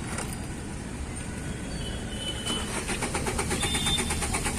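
Tata Bolt's engine being cranked by the starter motor in a rapid, even rhythm without catching, louder from about halfway through. It cranks but won't fire: a loose body earth wire is leaving the system voltage too low.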